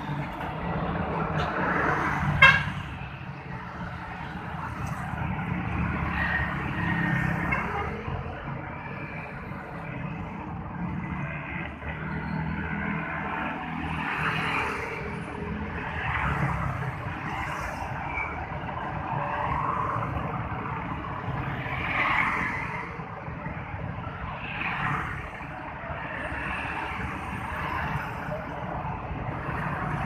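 Street traffic: motorcycles and cars passing one after another, the engine and tyre noise swelling and fading as each goes by. A single sharp clack about two seconds in is the loudest moment.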